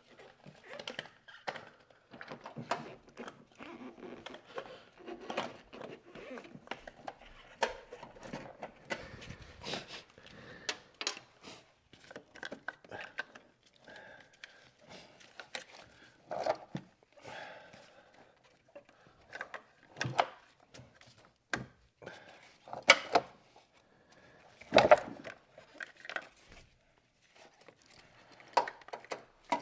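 Irregular knocks, clunks and clatter, as of objects being handled, with a few louder thuds in the second half.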